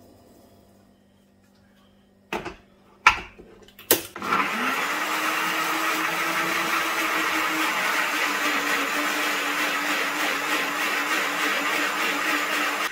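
A few sharp knocks, then an electric blender starts about four seconds in, its motor pitch rising quickly and then running steadily as it blitzes chopped chillies and tomatoes into sauce; it stops right at the end.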